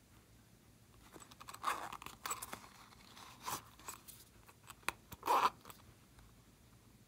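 Hard plastic case turned and rubbed in the hands: a few short crackling scrapes and clicks, the loudest about five seconds in.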